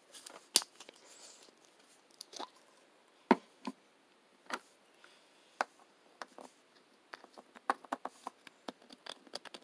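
Scattered light clicks and taps from handling a small plastic bottle of fluid acrylic paint and a paintbrush: the bottle is picked up, its cap worked and the brush dipped in. The two loudest taps come about half a second and about three seconds in.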